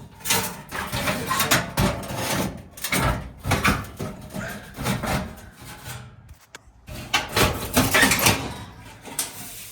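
Metal oven parts being handled and fitted back into a gas oven: irregular clanks, knocks and scraping, with a short pause about two-thirds of the way through.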